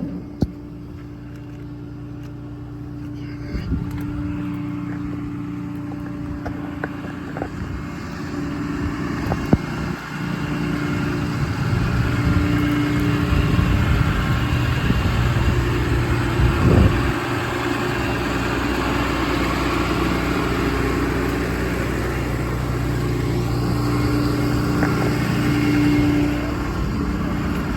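An engine running steadily, with scattered knocks and clicks; the sound grows louder about ten seconds in.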